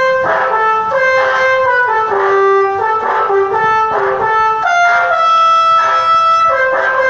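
Indonesian bus 'telolet' multi-tone horn playing a tune, several horn tones sounding together and stepping from note to note, with a short rush of noise about once a second.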